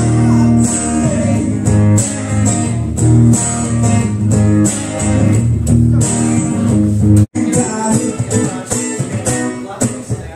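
Live blues band playing an instrumental passage led by electric guitar over a steady bass line. The sound cuts out completely for an instant about seven seconds in.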